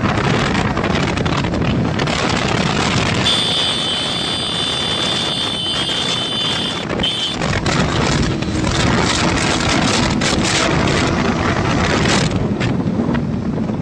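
Sport motorcycle riding at speed, its engine running steadily under wind rushing over the microphone. A steady high whine joins in for a few seconds about three seconds in.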